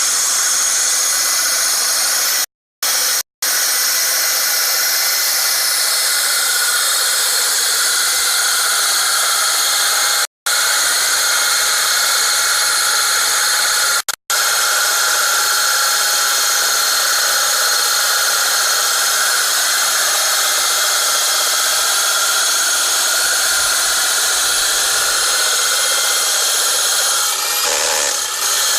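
SDS-plus rotary hammer driving a dry diamond core bit into concrete: a steady, loud grinding whine with several fixed ringing tones. It cuts off abruptly to silence four times, briefly each time.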